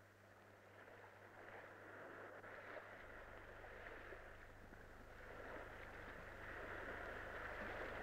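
Faint steady rushing noise with a low hum underneath, growing slightly louder as it goes; the background noise and hum of an old film soundtrack.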